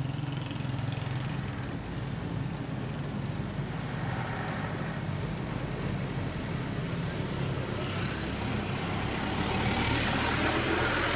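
A motor vehicle engine running steadily at low speed, with a hiss of road and wind noise that grows louder near the end.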